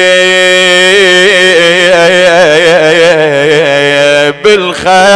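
A man chanting a mourning lament: one long, wavering, ornamented note held for about four seconds, then a short break, and the chant resumes in shorter phrases, over a steady low drone.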